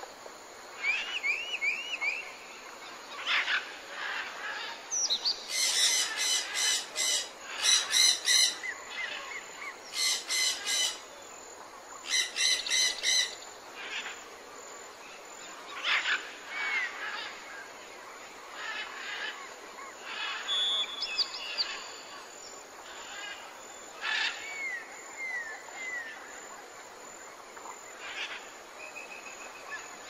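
Tropical jungle birds calling over a steady background hiss: whistled chirps and gliding notes from several birds. The loudest is a rapid pulsing call that comes in four bursts between about 6 and 13 seconds in.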